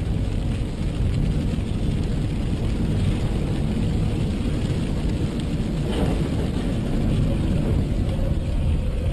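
Steady road and engine noise from inside a car's cabin on a rain-soaked highway: a low rumble with tyre hiss on the wet road, and one brief sharper sound about six seconds in.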